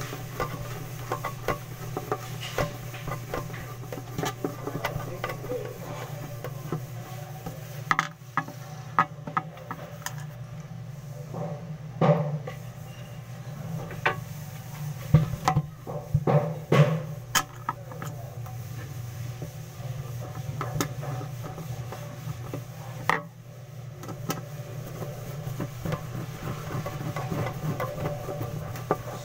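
Scattered clicks, scrapes and knocks of a hand screwdriver turning screws into a steel concealed cabinet hinge and of wooden boards being handled, over a steady low hum. The loudest knocks come in a cluster about halfway through.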